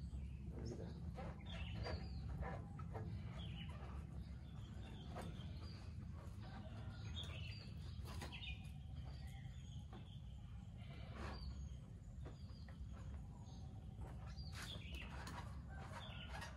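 Small birds chirping again and again over a steady low rumble, with a few faint clicks in between.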